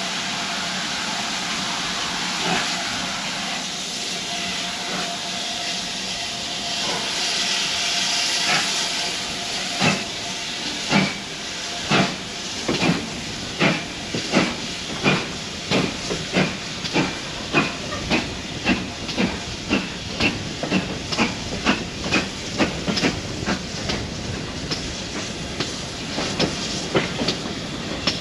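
Steam hissing from the Modified Hall 4-6-0 locomotive No. 6990, swelling for a couple of seconds about a third of the way in. Then the carriage wheels start clicking over the rail joints, about one click a second at first and quickening as the train pulls away.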